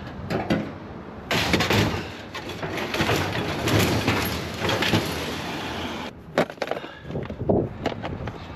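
Scrap items being handled and loaded: several seconds of dense rattling and scraping, then a few sharp knocks near the end.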